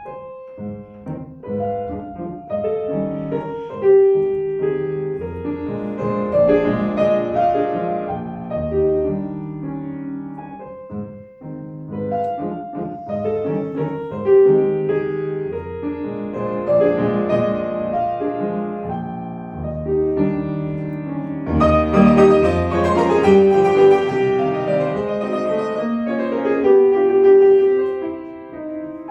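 Solo acoustic piano playing classical music in chordal phrases. It swells to a louder, fuller passage about three-quarters of the way through.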